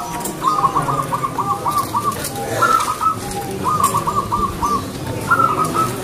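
Zebra dove (perkutut) singing: short cooing phrases alternate with longer runs of quick, staccato cooing notes, several phrases in a row.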